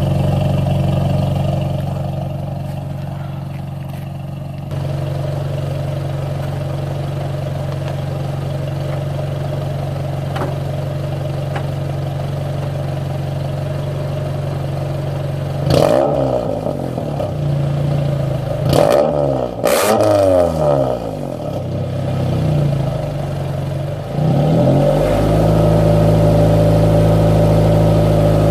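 1996 Honda Prelude's H23A1 four-cylinder engine idling loudly through its exhaust with the silencer insert taken out. Midway it is revved three times in quick succession, each rev rising then falling back to idle. The idle is louder near the end.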